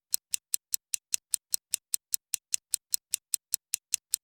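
Clock ticking fast and evenly, about five sharp, high ticks a second.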